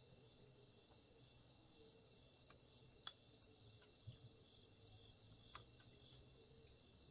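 Faint, steady chirring of crickets, with a few soft clicks scattered through.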